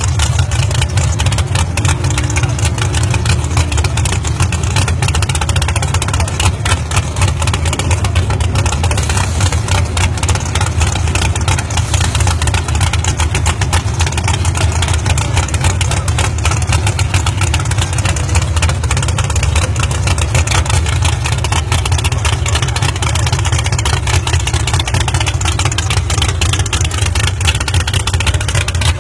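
Car engine held at high revs, loud and steady without letting up.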